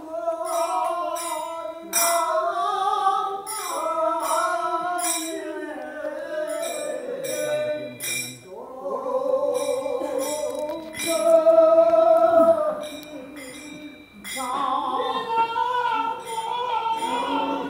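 Manipuri Nat Sankirtan devotional singing: men's voices holding long, sliding melodic lines, with hand cymbals struck in a steady pattern. The singing breaks briefly about eight seconds in and again near fourteen seconds.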